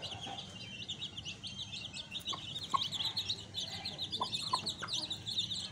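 A brood of eight-day-old Aseel chicks peeping continuously, many quick high chirps overlapping. A few short, lower calls are mixed in about two seconds in and again past four seconds.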